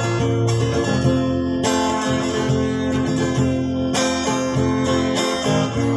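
Music: an acoustic guitar strumming ringing chords, with a new chord struck about every two seconds.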